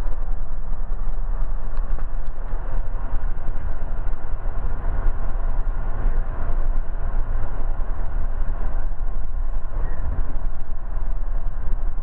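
Steady rumble and hiss of a GO Train heard from inside the passenger coach, heaviest in the low end, with no sudden events.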